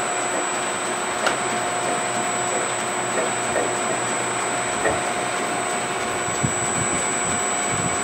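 Large metal lathe running, its four-jaw chuck spinning a small engine crankshaft, a steady whirring noise with a steady whine and a few faint light ticks.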